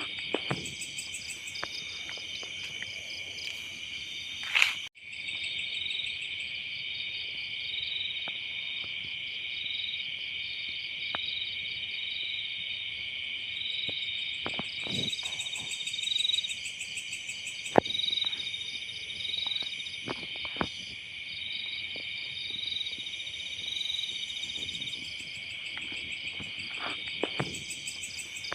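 Night-time insect chorus: a dense, steady, pulsing trill of many calling insects. A short loud sound about four and a half seconds in breaks in, and scattered faint clicks and rustles run under the chorus.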